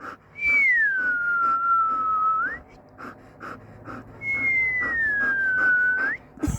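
A person whistles two long notes, each sliding down in pitch and then flicking sharply up at the end. Underneath, a dog pants in quick, even breaths.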